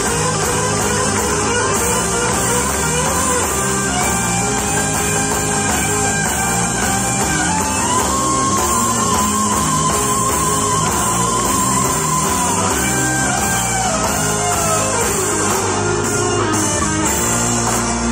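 Live rock band playing through a PA, with electric guitars, bass, keyboards and drums. About eight seconds in, a lead line climbs and holds one note with vibrato for a few seconds.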